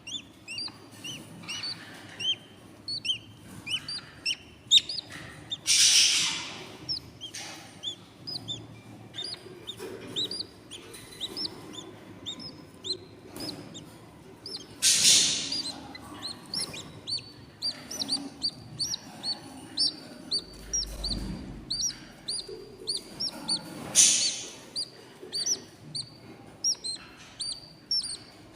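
Hungry budgie nestlings cheeping in the nest box: a constant stream of short, high begging chirps, with three louder raspy calls about nine seconds apart.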